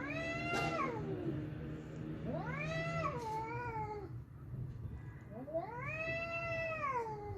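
Angry domestic cats caterwauling in a fight: three long, drawn-out yowls, each rising and then falling in pitch, about a second apart, with a low steady growl beneath the first two.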